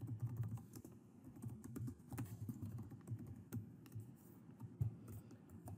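Typing on a computer keyboard: quiet, irregular key clicks as a line of code is entered.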